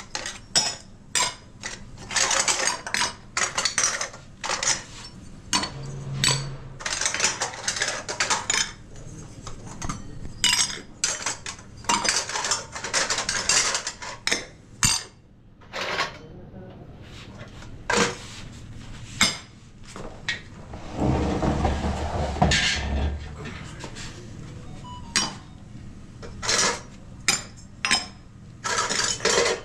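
Dishes, pots and metal cutlery clattering, with irregular clinks and knocks. About two-thirds of the way through comes a steadier rushing noise lasting about two seconds.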